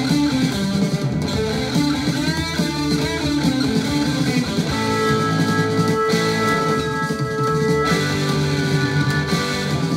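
Rock music playing from a vinyl record on a turntable: electric guitar over bass.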